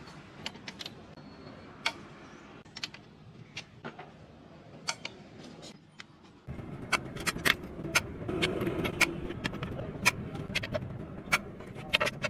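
Sharp metallic clinks and taps of a steel pry bar striking the clutch release bearing and fork inside a ZF truck gearbox's bell housing as the release bearing is worked off. About halfway through, a steady background noise comes up under the clinks.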